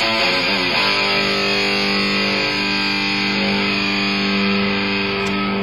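Electric guitar played through an amplifier: a few quick notes, then about a second in a chord is struck and left ringing, held for several seconds.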